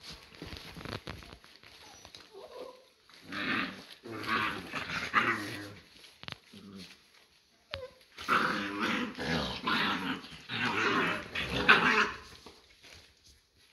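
American Staffordshire terrier x American bulldog puppies play-fighting and growling at each other, in two loud bouts, about three seconds in and again from about eight seconds in, with quieter scuffling between.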